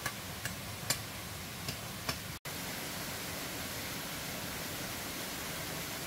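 Steady rushing of a waterfall, with a few light clicks in the first two seconds. The sound drops out for an instant about two and a half seconds in, at an edit, and the rushing then carries on a little louder.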